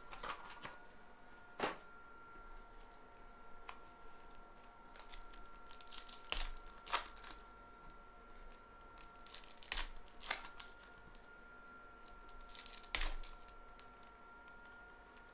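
Foil wrappers of Donruss Optic football card packs being torn open and crinkled in the hands: a series of sharp crackles a second or more apart, with cards handled between them.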